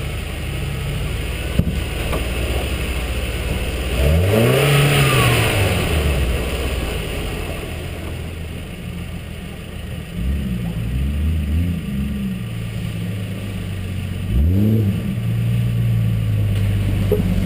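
Off-road truck's engine running under a steady low rumble, revving up and easing off several times as it drives a muddy trail. The biggest rises come about four seconds in and again near the end.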